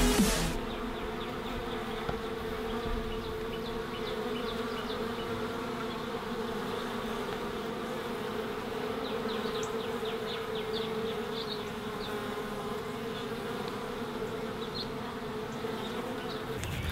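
Electronic music cuts off about half a second in, giving way to honey bees buzzing in a steady, even hum.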